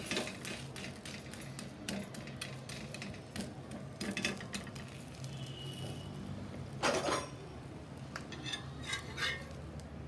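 Steel flat spatula scraping and clicking against a dosa tawa as a folded dosa is pressed and lifted, in short irregular strokes, with one louder, longer scrape about seven seconds in.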